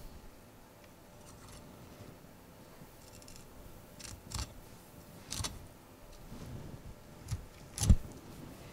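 Deba knife cutting into a sea bream behind the head on a wooden cutting board. About five sharp clicks and knocks come from the blade meeting bone and board in the second half, the loudest near the end.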